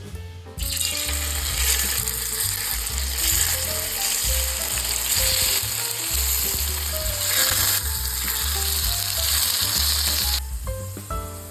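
Food sizzling and frying in hot oil in a pan. The sizzle starts about half a second in and stops abruptly near the end, over steady background music.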